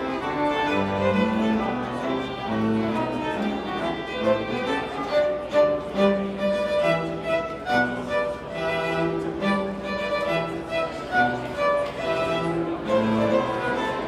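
String quartet of two violins, viola and cello playing a piece with sustained bowed notes over a low cello line.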